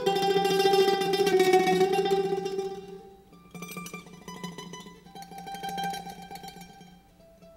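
Plucked string instruments, led by a small mandolin-like lute, playing a slow Greek melody with held notes rapidly re-picked in tremolo. It is loud for about the first three seconds, then drops to a softer passage.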